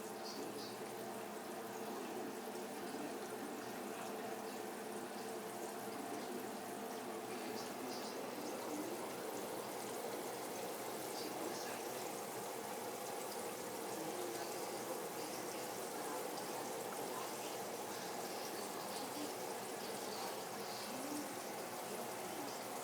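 Breaded chicken pieces frying in a pan of hot vegetable oil: a steady sizzle with small crackles throughout.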